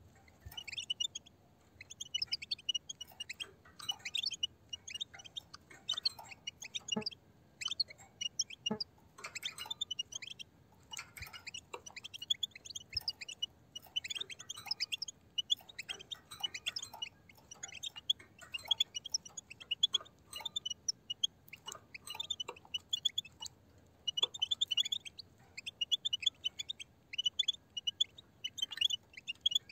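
A flock of European goldfinches twittering, many birds calling at once in quick runs of high chirps that come in bursts every second or so.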